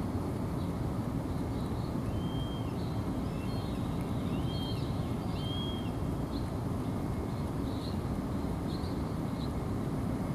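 Steady low rumble of urban background noise, with faint short high-pitched bird calls scattered through it and a few clearer short whistles between about two and five seconds in.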